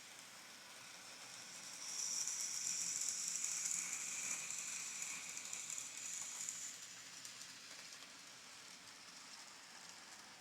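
N scale model train running on the layout: a high, hissing rattle of small wheels on track that swells about two seconds in and fades after about seven seconds, as a train passes by.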